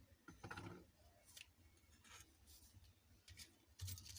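Faint, scattered clicks and light taps of small phone parts being handled and set down on a work surface.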